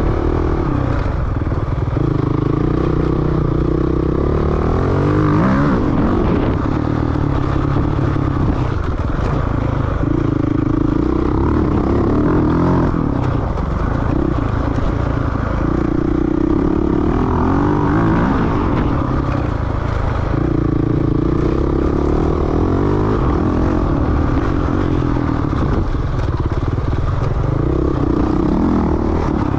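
Off-road motorcycle engine being ridden hard on a trail, the revs rising and falling over and over as the rider works the throttle and gears.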